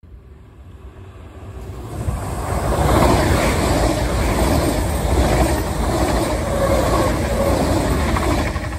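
DB ICE high-speed electric train passing close by at speed: a rushing of wheels on rail and air that swells over the first three seconds, holds steady, then drops off near the end as the tail of the train goes by.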